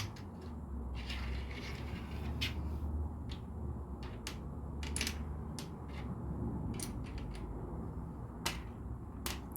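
Plastic LEGO pieces clicking and rattling as they are handled and pressed together: a string of separate sharp clicks with a short stretch of rustling early on, over a low steady hum.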